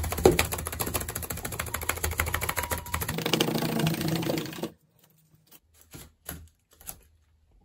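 An old paintbrush whisked fast back and forth over a bare, scratched-up wall, the bristles striking it in a rapid run of dry ticks as the dust is swept off. The ticking stops about two-thirds of the way in, leaving a few faint, scattered ticks.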